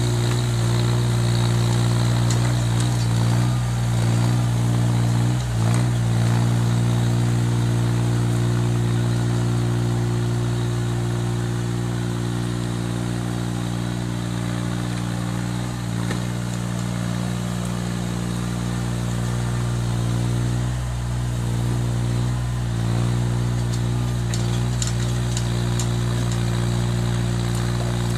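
Mini excavator's diesel engine running steadily, its note dipping briefly a few times. A few light clicks come near the end.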